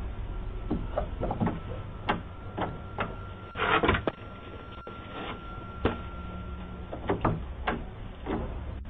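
A man's hand banging and slapping on a front door: a dozen or so irregular knocks, with a louder, rougher bang about four seconds in. It sounds dull through a Ring doorbell camera's microphone, which cuts off the higher sounds, and a faint steady whine runs through the middle.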